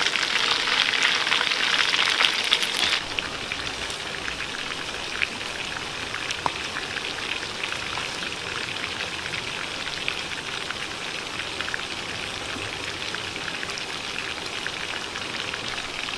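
Chicken drumsticks frying in hot oil in a clay pot: a loud, dense sizzle full of crackles, which drops suddenly about three seconds in to a quieter steady sizzle with scattered small pops.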